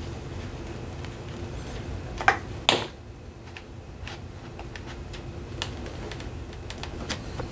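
Scattered clicks and knocks of hands and a tool prying at a cracked moulded plastic guitar case, with two louder knocks a little over two seconds in, over a low steady hum.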